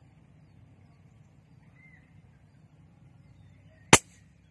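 A single shot from a scoped CZ bolt-action .22 LR rifle: one sharp crack just before four seconds in, with a short tail after it.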